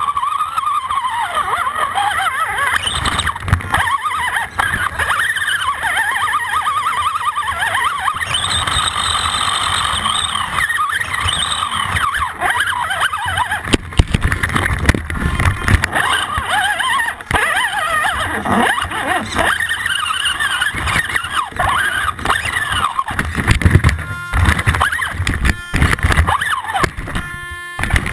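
Axial AX10 RC rock crawler's electric motor and drivetrain whining, the pitch rising and falling as the throttle changes. Knocks and scrapes of the chassis and tyres on rock come through now and then, with a couple of louder hits.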